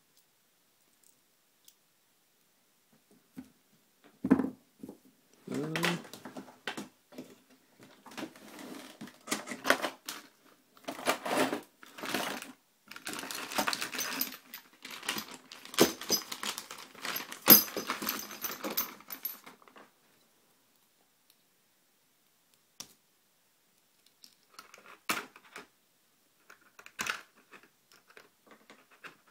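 Metal clicking, rattling and scraping as a TrioVing oval lock cylinder is worked apart by hand, with a tension wrench in its keyway. A knock comes about four seconds in, then about fifteen seconds of busy clicking and scraping, and a few scattered clicks near the end.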